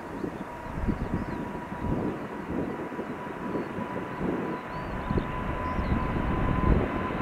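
Jet engines of a widebody airliner at takeoff power: a low, crackling rumble with a thin steady whine on top, growing slightly louder toward the end.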